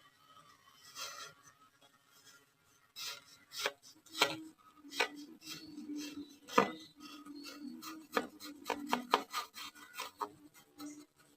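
Kinetic sand being worked: faint scratching at first, then from about three seconds in a run of sharp, irregular crunching crackles, over a low steady hum.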